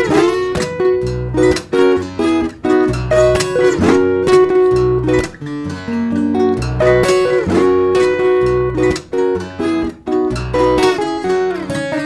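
Solo steel-string acoustic guitar played fingerstyle: a melody picked over a recurring low bass note, with crisp plucked attacks.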